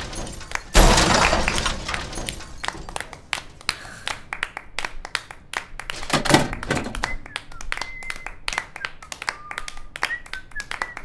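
A loud crash and clatter about a second in, as of the plastic model skeleton hitting the floor. After it comes a long run of sharp, echoing clicks and taps: hard-soled shoes walking on a hallway floor, with a few short high squeaks in the last few seconds.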